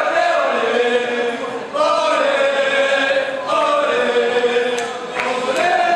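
A group of voices chanting in unison, a football supporters' chant sung in long held phrases of just under two seconds each, about four phrases in all.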